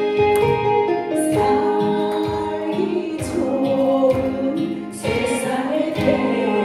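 Korean trot song playing, a backing track with a steady beat about twice a second and singing voices over it.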